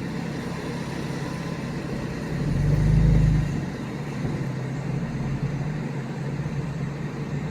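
Stage 2 tuned 2017 BMW M4's twin-turbo straight-six running at low revs, with one brief swell in revs lasting about a second, around two and a half seconds in.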